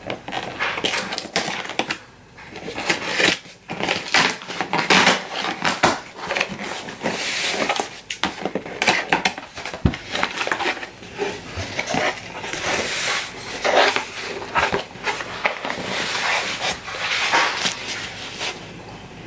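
Scissors cutting the packing tape on a cardboard shipping box, then the cardboard flaps being pulled open and the packaging handled and lifted out: an irregular run of scrapes, crackles and clicks.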